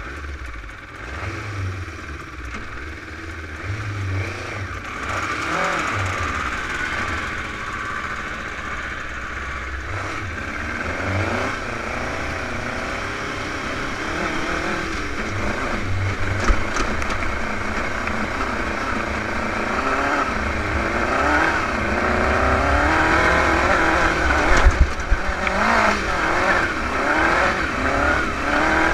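Dune buggy engine revving up and down over and over as the buggy is driven across rough ground, with a steady rush of noise beneath and a few sharp jolts near the end.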